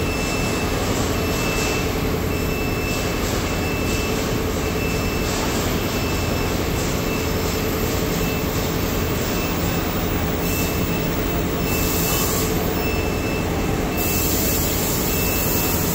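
Double-mast aerial work platform's lift drive running steadily as the mast extends and raises the platform, with a short high warning beep repeating a bit more than once a second.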